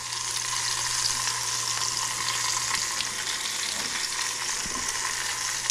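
Chicken thigh skin searing in a hot cast iron skillet: a steady sizzling hiss of frying fat, with a faint steady hum underneath.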